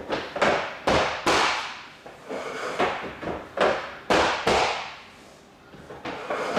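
Interlocking ABS plastic floor tiles knocking and clacking as they are set down and pressed together, about eight sharp hollow knocks at uneven intervals.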